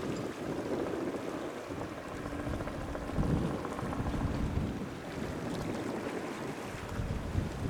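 Wind buffeting the microphone over the low, uneven drone of a Robinson R44 Raven helicopter in flight.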